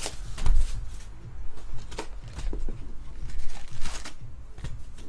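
A cardboard trading-card box being handled and opened on a tabletop: knocks, taps and scrapes of cardboard, with paper rustling, the loudest a thump about half a second in.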